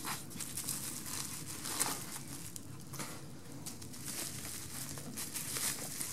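Plastic bubble wrap around a camcorder crinkling and crackling irregularly as hands handle and turn the wrapped camera.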